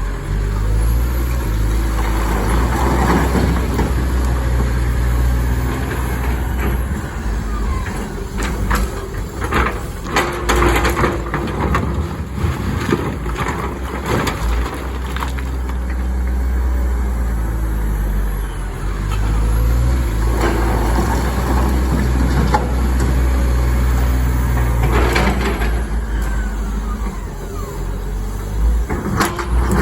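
Komatsu excavator's diesel engine running under load, working its hydraulics, with rock scraping and clattering against the bucket in clusters. The clattering is busiest about a third of the way through and again near the end.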